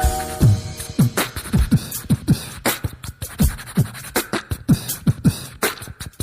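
Background music: a rhythmic electronic beat of sharp drum hits and kicks, many with a quick falling pitch.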